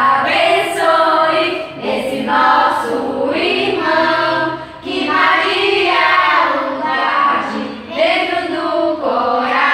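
A small group of voices, women and children among them, singing a birthday song together in sung phrases with short breaks between lines.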